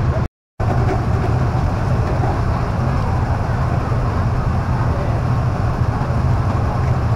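Steady outdoor street ambience dominated by a low traffic rumble with general background noise. The sound cuts out completely for a moment about a third of a second in, then carries on unchanged.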